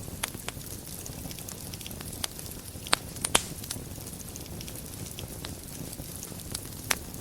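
Wood fire burning in a fireplace: steady crackling over a low rumble, with sharp pops, the loudest two close together about three seconds in and another near the end.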